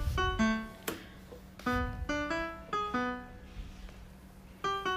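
Background music: a light melody of short, separate notes on a piano-like keyboard instrument, pausing briefly near the end before starting again. A single sharp click sounds about a second in.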